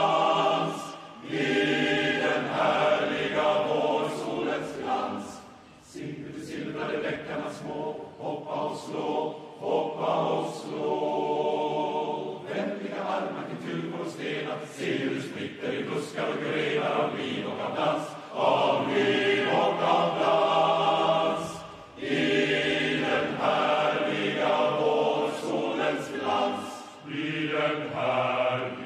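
Large male student choir singing in full harmony, in long sustained phrases with short breaks between them about a second in, around six seconds in and again near twenty-two seconds.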